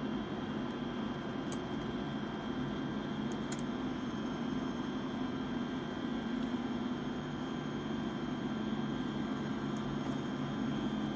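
Cessna light aircraft's piston engine idling steadily after start, with no change in speed.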